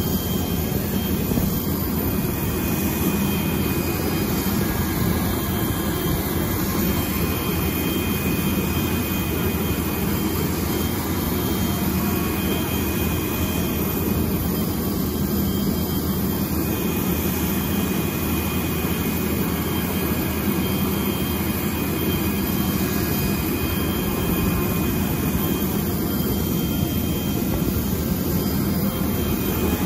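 Avro Vulcan's Olympus turbojet engines running steadily on the ground, a continuous jet roar with a thin high whine over it.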